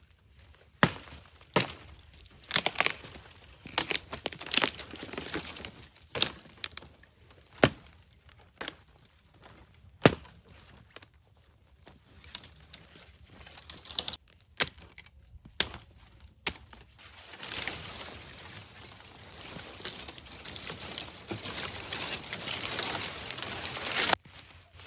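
Dry wood cracking and snapping in a dozen or so sharp, irregular cracks. These are followed by a longer rustling, scraping noise that builds over several seconds and cuts off suddenly near the end.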